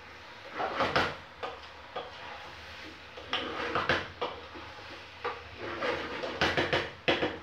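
Wooden spoon stirring liquid in a plastic jug, knocking and scraping against its sides in irregular clusters of knocks.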